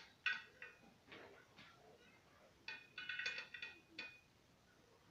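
Turquoise pearl-style beads clicking against each other and against a metal tray as the strand is handled: scattered light clicks with a short ring, then a quick flurry of them about three seconds in.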